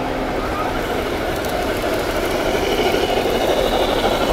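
G-scale model steam train running on its track, a steady rumble that grows louder about three seconds in as it passes close.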